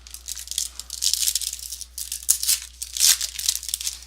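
Foil trading-card pack wrapper crinkling and rustling in the hands as it is torn open, in irregular clumps with a sharp click about two seconds in.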